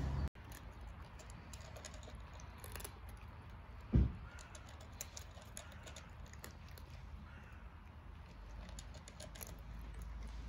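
Cats chewing dry kibble: a scatter of small, crisp crunches, with one dull thump about four seconds in.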